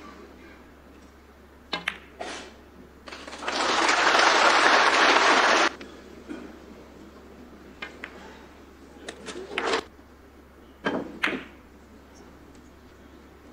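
Snooker balls clicking, the cue tip on the cue ball and ball striking ball, twice about two seconds in. Then the arena audience applauds for about two and a half seconds, the loudest sound, followed by a few more sharp ball clicks later on.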